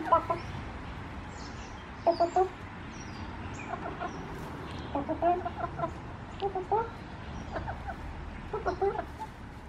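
White hens clucking: short clusters of soft, low calls come every second or so, over a low steady hum.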